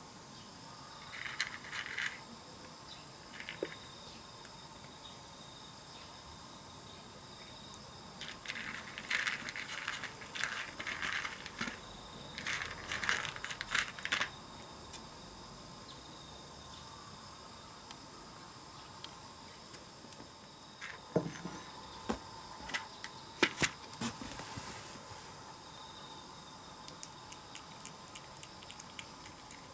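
Tabby cat crunching dry kibble in irregular bursts of crisp chewing and crackling, with a few sharper clicks later on.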